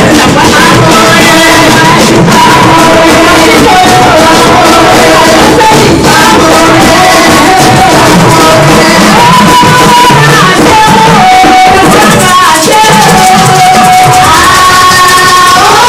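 Loud live church praise music: a singer's voice amplified through a microphone over a band with drums and shaker-like percussion.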